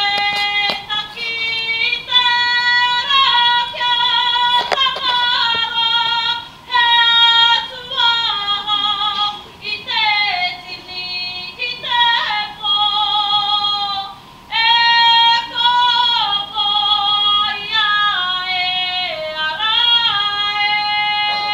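A high female voice singing a slow melody in long held notes that step and slide between pitches, phrase by phrase with short breaks between.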